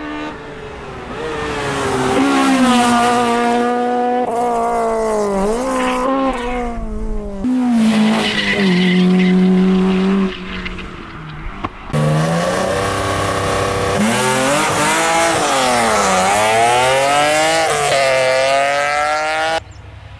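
Rally cars at full throttle, the first a Honda Civic, their engines revving hard and dropping through gear changes as they come past one after another. The sound breaks off abruptly between cars.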